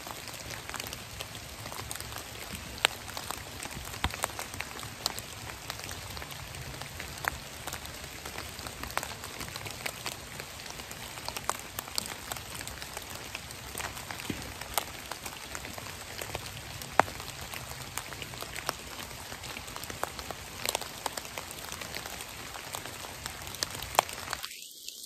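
Rain falling on dry leaf litter: a steady hiss broken by many scattered ticks of single drops striking the leaves.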